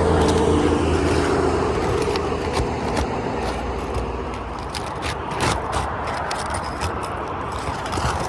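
A passing vehicle's engine hum fades over the first second or two. Then come scraping and sharp irregular clicks as roof shingle tabs are pried and worked loose, the clicks growing more frequent after about five seconds.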